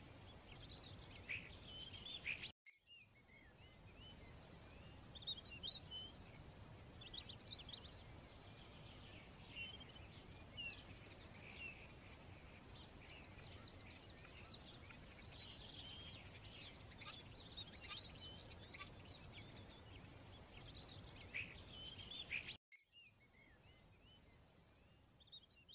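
Faint birdsong: many short, high chirps and tweets over a low steady hiss. The sound cuts out abruptly for a moment twice, a few seconds in and near the end.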